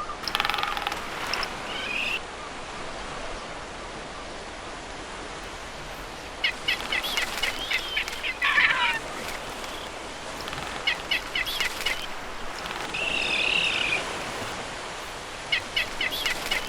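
Birds calling: three short runs of rapid clicking, a brief falling call in the middle, and a warbling call later, over a faint steady hiss.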